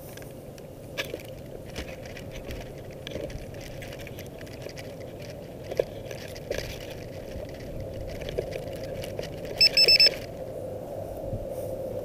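Wind rumbling on the microphone of a landed hexacopter, with scattered light ticks of grass brushing it. About ten seconds in, a quick run of three high electronic beeps.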